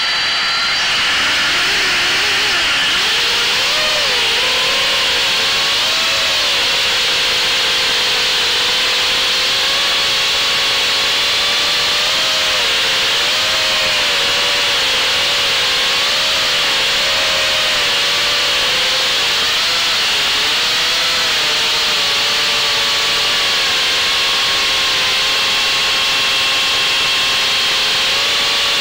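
Small FPV racing quadcopter's electric motors and propellers whining in flight, the pitch wavering up and down with the throttle over a heavy rushing hiss. A high, steady idle whine from the freshly armed motors gives way about a second in as it throttles up.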